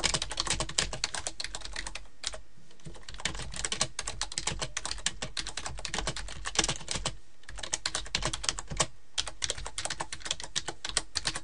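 Computer keyboard being typed on: a sentence keyed in quick runs of key clicks, with a few short pauses between runs.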